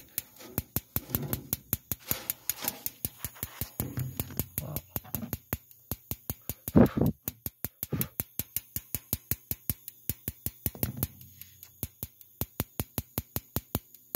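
Spark igniter on a Carrier 58GS gas furnace's pilot assembly ticking steadily, about four sparks a second, as it keeps trying to light the pilot gas, which has not yet caught. A brief louder thump about halfway through.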